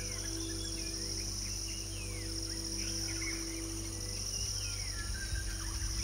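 Many short, high bird chirps scattered throughout, over a steady high-pitched drone and soft background music holding long sustained notes.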